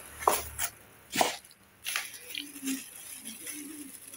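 Plastic packaging being unwrapped and handled: a few sharp crinkles and knocks in the first two seconds, then quieter rustling.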